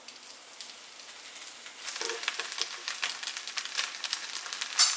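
Fish wrapped in banana leaf and foil sizzling and crackling on a hot cast-iron griddle. The crackling grows louder about two seconds in, and there is one sharp tap near the end.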